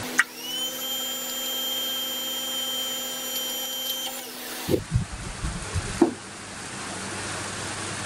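FINN-Power P20 hydraulic hose crimper's electric motor and pump switching on with a click, spinning up and running with a steady whine for about four and a half seconds, then winding down. A few heavy clunks follow as the crimping dies and head settle.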